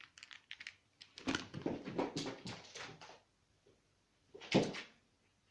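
A cat playing with a toy mouse: a quick run of light clicks, then a spell of scuffling and knocking, and one louder knock about four and a half seconds in.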